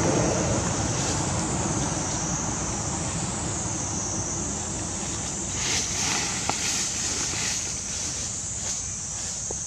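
Outdoor forest ambience: a low wind rumble on the microphone under a steady high hiss. From about halfway there are scattered short rustles and clicks.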